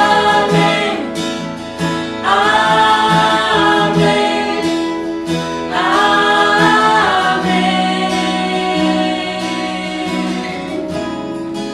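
A small group of women singing a worship song together to a strummed acoustic guitar. There are two long sung lines with held notes, about two and six seconds in, and the guitar carries on more softly under fading voices near the end.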